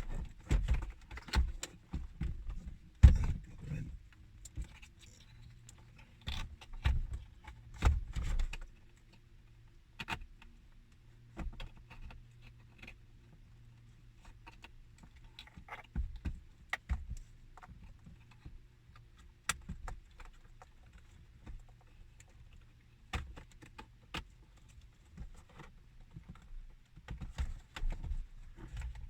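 Hands refitting car dashboard parts: scattered clicks, knocks and rattles of plastic trim and wiring being handled, with heavier thumps in the first eight seconds or so and again near the end. A faint steady hum runs through the middle.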